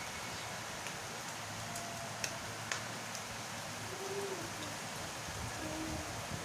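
Steady rain falling, with a few sharper ticks of single drops striking a surface. From about four seconds in, a few short, low calls sound faintly over the rain.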